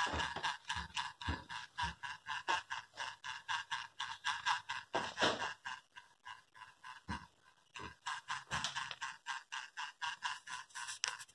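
Small toy electric motor driving a LEGO Technic buggy through a rubber-band friction drive, running with a rhythmic clicking about four to five times a second. The clicking fades for a moment about six seconds in and then picks up again.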